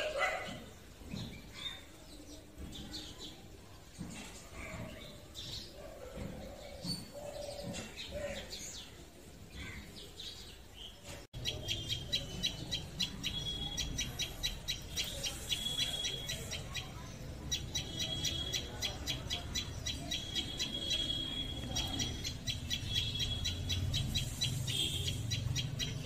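Common tailorbird chirping: a rapid, steady run of high, sharp notes over a low background rumble. Before an abrupt change about eleven seconds in, only faint scattered chirps are heard.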